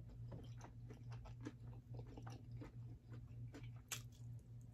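Faint close-miked chewing and small wet mouth clicks of someone eating salad by hand. There is a sharper click about four seconds in, as a piece goes into the mouth. A low steady hum runs underneath.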